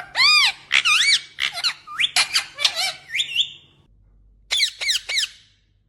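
Indian ringneck parakeet (rose-ringed parakeet) calling: a fast run of shrill squawking calls, a short pause, then four quick calls about four and a half seconds in.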